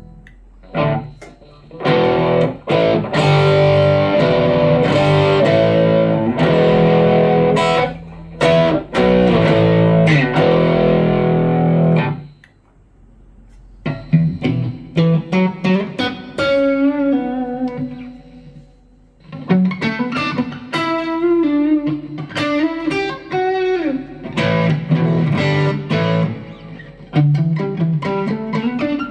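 Electric guitar played through a BOSS GT-1 multi-effects processor. For about the first twelve seconds it plays dense distorted chords. After a brief pause it switches to single-note lines with a bend in the middle of the second half.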